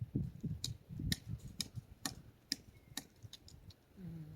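Footsteps: a sharp click about every half second over dull low thuds, at a walking pace.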